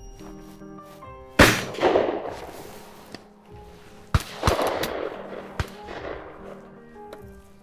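Shotgun shots at pheasants: two loud reports about three seconds apart, each rolling away in a long echo, with a few fainter, sharper cracks between and after them. Background music plays underneath.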